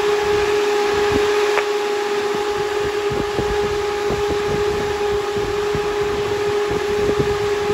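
Brushless outrunner electric radiator fan from a 2016-on Camaro SS running steadily on a PWM test controller: a steady motor whine over the rush of air, with low gusts of airflow on the microphone.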